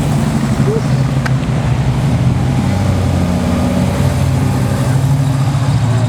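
Engines of classic cars and trucks running as they drive slowly past: a steady, low engine hum that shifts a little in pitch as vehicles change.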